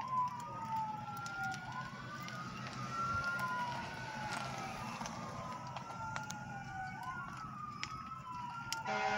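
Two or more fire truck sirens wailing together, their pitches slowly rising and falling and overlapping. A steady pitched hum comes in near the end.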